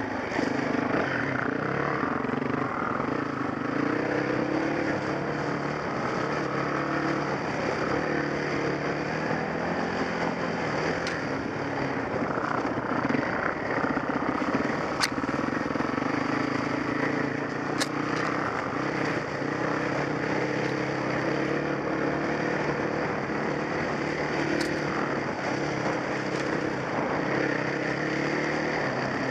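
Dirt bike engine running steadily at trail speed, its pitch rising and falling a little with the throttle, heard through a helmet-mounted camera. A few sharp clicks stand out around the middle.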